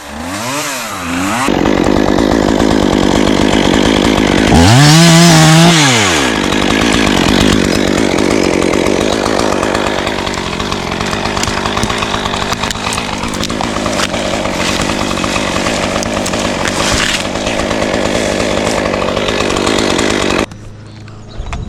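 Chainsaw running and cutting wood, its engine revving up and back down twice early on before settling into steady cutting; it cuts off suddenly about a second before the end.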